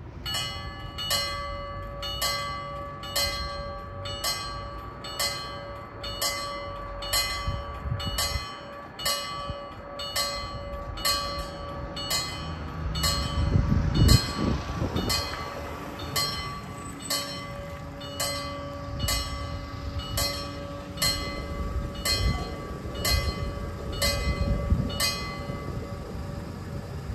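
Level-crossing warning bell striking about once a second, each stroke ringing on, as the crossing is activated; the bell stops shortly before the end. A car driving past, about halfway through, is the loudest moment.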